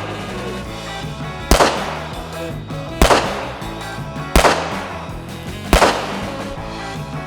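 Handgun shots, single and evenly paced, four of them about a second and a half apart, each with a short ringing echo, over background music.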